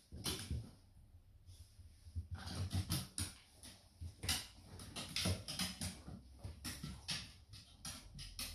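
A dog's claws clicking and scrabbling on wooden floorboards as it moves about and jumps, an irregular run of sharp taps.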